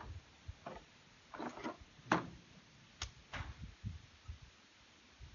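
Hand tools being handled at work on a bucket feeder: a handful of separate sharp clicks and clunks spread through, with no steady rhythm.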